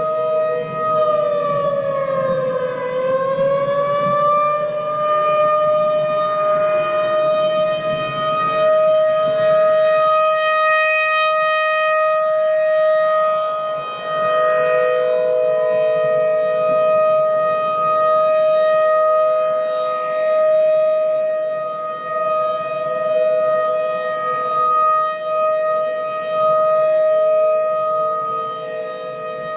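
Emergency alert siren sounding a loud, steady wail. Its pitch sags and climbs back about two to four seconds in, then holds, and a slightly lower second tone fades in and out beneath it.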